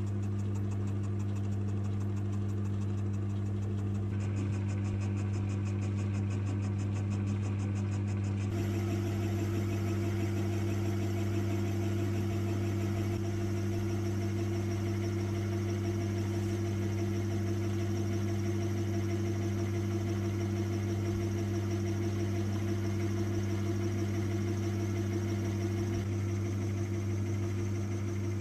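Metal lathe running at a steady speed, its chuck spinning: an even motor hum that holds one pitch throughout, with a little more hiss joining about eight seconds in.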